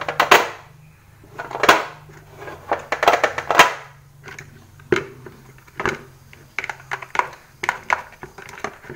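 Irregular knocks, taps and clatter of soapmaking utensils being handled: a plastic mixing bowl, a spatula and a metal tray holding a silicone mold. The busiest clatter comes about two and three seconds in.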